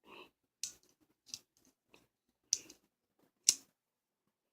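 A lighter's thumb wheel flicked against its flint again and again: four sharp scraping clicks, irregularly spaced about a second apart, the last one the loudest.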